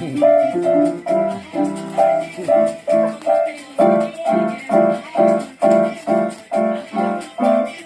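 Keyboard music: short pitched chords repeating evenly, about two a second, in a bouncy rhythm.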